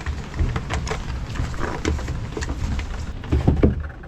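Handling noise: scattered clicks and knocks over a low rumble, with a short groan-like sound a little before the end.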